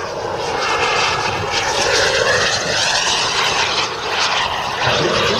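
RC model jet's small ATJ gas turbine engine running in flight: a loud, steady rushing noise with a faint whine that dips slightly in pitch, swelling about two seconds in.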